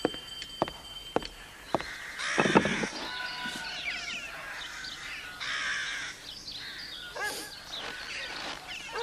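Footsteps on a hard floor, about two a second. From about two seconds in, crows caw outdoors: a loud harsh caw first, then repeated rasping calls.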